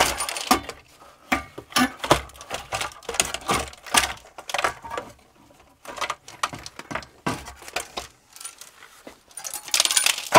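Irregular clicks, knocks and rattles of a large circuit board and loose parts being worked free of a solar inverter's housing by gloved hands. The clatter gets denser near the end as the board comes out.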